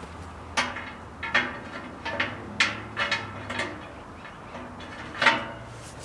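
Steel side shelf being fitted onto a sheet-steel wood stove: a run of metal clanks and clinks with short ringing, about seven in all, the loudest one about five seconds in.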